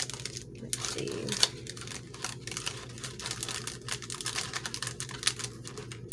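Clear cellophane bag of paper embellishments crinkling and rustling as fingers handle it and press it into a cardstock box, in a run of quick irregular clicks with one sharper click about a second and a half in.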